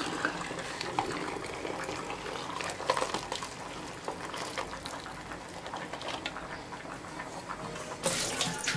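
Hot hibiscus tea (zobo) pouring from a pot through a plastic funnel sieve into a glass jug, splashing with small clicks. A louder noisy stretch comes near the end.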